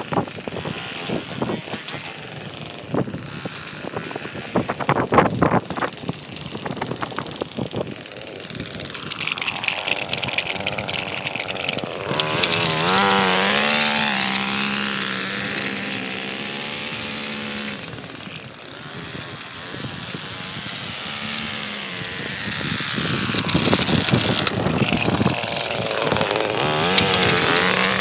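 Gas-powered stick edger's two-stroke engine running as the blade cuts along a concrete edge. For the first half there is irregular scraping and clatter; then a steady high engine note takes over, fades for a few seconds and builds again near the end.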